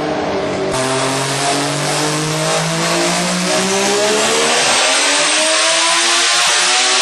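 Mazda 20B-RE three-rotor rotary engine in a sandrail, run under load on a dyno: its pitch drops suddenly under a second in, like a gear change, then climbs steadily for about six seconds as it revs up.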